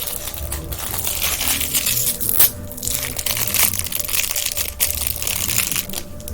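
Thin plastic wrapping crinkling and crackling as it is handled and pulled open, in quick irregular crackles.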